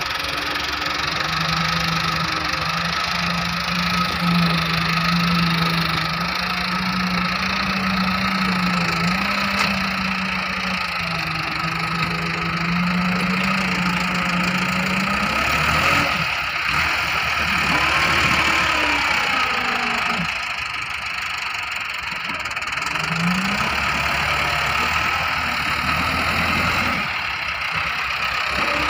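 Massey Ferguson 375 tractor's four-cylinder diesel engine working under load as its front blade pushes soil and rocks. The engine note holds steady for about fifteen seconds, then its pitch rises and falls through the second half.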